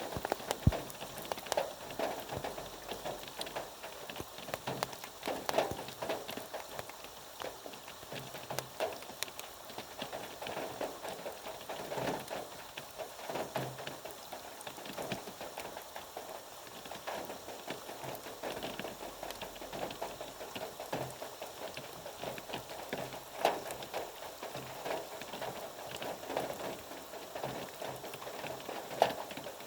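Rain falling, with a steady patter and many irregular drops tapping on a surface.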